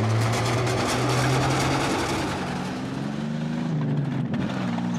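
Heavy WWII armoured vehicles (tanks) running, engine pitch shifting over a dense clatter.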